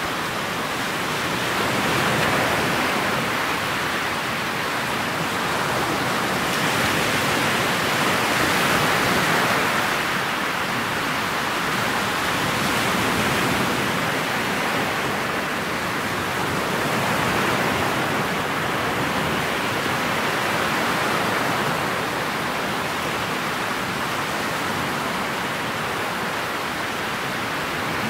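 Steady rush of water along a motorboat's hull, mixed with wind on the microphone, as the boat runs across choppy water. The rush swells and eases every few seconds, and no engine tone stands out.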